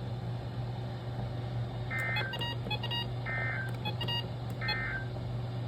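NOAA Weather Radio end-of-message (EOM) signal: three short, buzzy digital data bursts a little over a second apart. These Specific Area Message Encoding (SAME) bursts mark the end of the severe thunderstorm warning broadcast. A steady low hum runs underneath.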